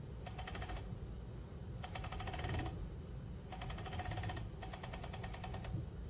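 Industrial sewing machine stitching a side seam in short runs: four bursts of rapid needle strokes, each under a second or so, with brief pauses between as the fabric is guided.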